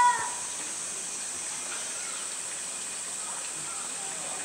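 A child's short high-pitched call right at the start, then a steady background hiss with faint, distant voices of people at the zoo.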